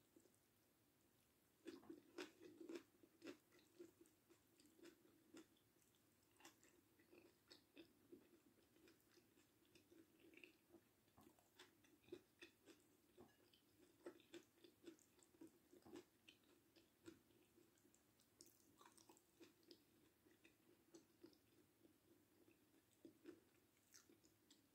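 A person chewing food close to the microphone, faint: a run of quick, sharp mouth clicks starting about two seconds in, then irregular chewing.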